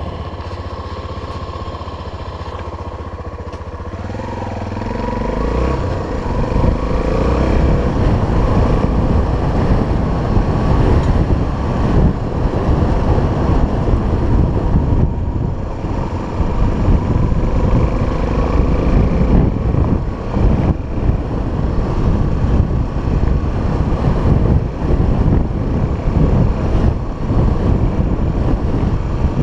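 Honda XR 250 Tornado's single-cylinder four-stroke engine running steadily, then revving up about four to six seconds in as the bike pulls away. It keeps running under load, its pitch rising and falling with the throttle and gear changes.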